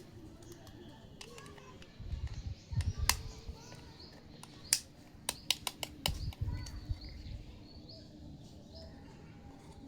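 Small plastic toy-kitchen pieces being handled, with sharp clicks and taps in bursts and a few soft low thuds. Faint bird chirps sound in the background in the second half.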